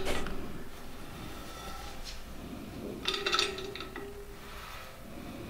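A short clatter of metal hand tools on the engine, a few sharp clinks with a brief ring, about three seconds in.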